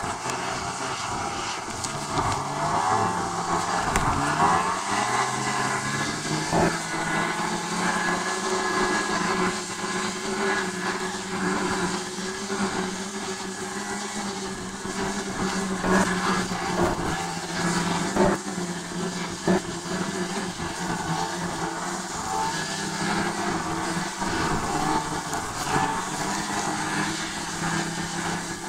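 A vehicle's engine running steadily, its pitch rising between about two and five seconds in, with a few sharp knocks along the way.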